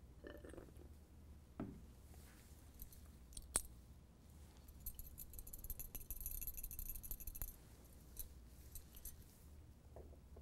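Faint clinks and rattling of a glass test tube in a metal wire test-tube holder as it is handled and shaken to dissolve a salt. There is a single sharp tap about three and a half seconds in, and a spell of quick rattling from about five to seven and a half seconds.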